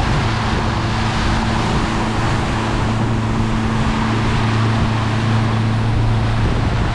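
Small boat's motor running steadily at cruising speed, a constant low drone, with wind across the microphone and water rushing past the hull.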